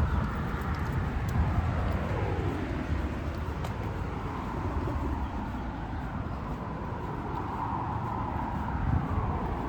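Road traffic: cars passing on a street, a steady rumble of engines and tyres, with one vehicle going by about two seconds in and another approaching near the end.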